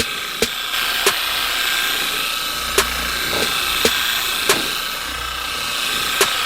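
Electric car-paint polisher running steadily with a high whine as a foam cutting pad works compound into the paint. A few sharp clicks come at irregular moments.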